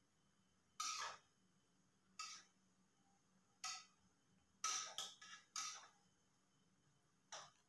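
Spoon stirring grated carrots in a steel cooking pot, scraping against the pot about seven times in short, uneven strokes.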